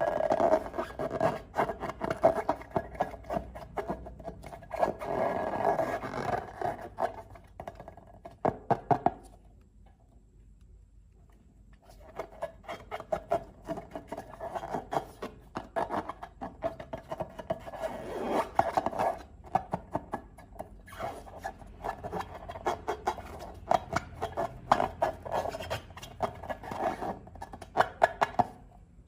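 Hands squishing and stretching slime, making dense, irregular sticky clicks and crackles. The sound stops for about two seconds near the middle, then starts again.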